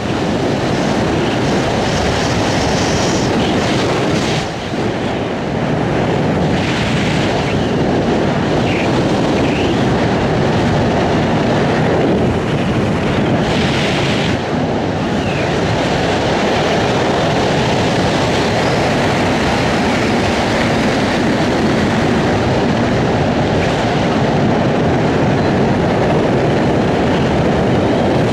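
Steady rushing wind buffeting the microphone of a camera worn by a skydiver under an open parachute canopy.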